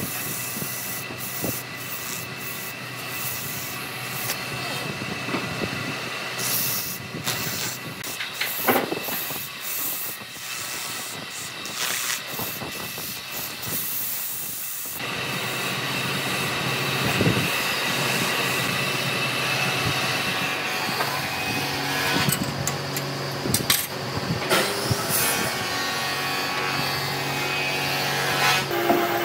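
Power tools working hardwood: an abrasive rubbing hiss over a steady motor whine, with scattered knocks. About halfway through it changes suddenly to a louder, steadier machine hum.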